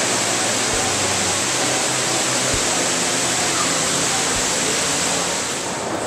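Dubai Mall's multi-storey indoor waterfall: water streaming down the wall in a loud, steady rush, easing slightly near the end.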